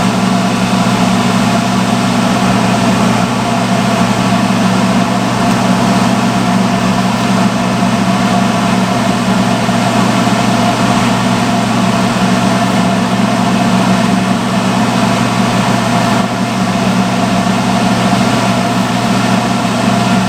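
Salon hood hair dryer running steadily on its hottest setting: an even, loud blower drone with a steady motor hum.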